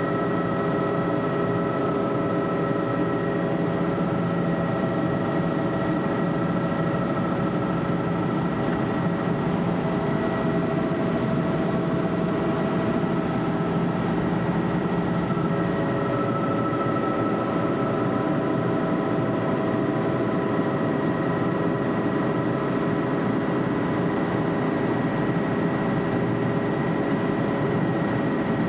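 Helicopter in flight, heard from on board: a steady engine and rotor drone with several thin, steady whining tones over it, unchanging throughout.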